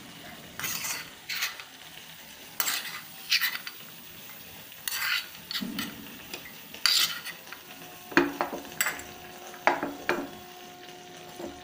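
A steel spoon scraping inside a small steel tempering pan as roasted cashews are scooped out of hot ghee, with a faint sizzle of the ghee underneath. From about two-thirds of the way in come four sharp metal clinks that ring on briefly.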